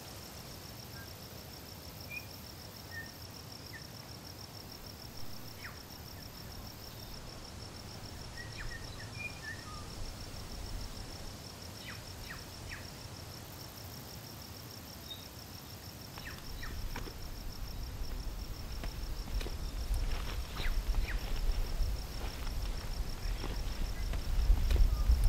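Mountain outdoor ambience: a steady high insect trill with scattered faint bird chirps, and wind buffeting the microphone that builds in the second half into a low rumble.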